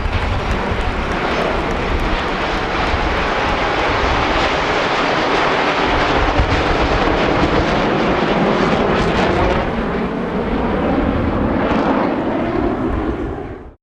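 Jet aircraft flying over with a loud, continuous roar whose pitch slowly shifts as it passes. The sound cuts off suddenly just before the end.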